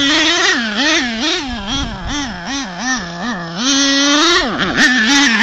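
Nitro RC monster truck's small glow-fuel engine revving up and down as the throttle is worked, its high pitch rising and falling two to three times a second. It holds a higher steady pitch briefly, then drops sharply and climbs again near the end.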